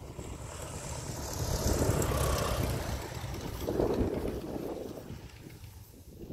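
Van's RV-4 light aircraft's piston engine and propeller passing by as it lands, swelling to its loudest about two seconds in and fading as the plane rolls away down the strip.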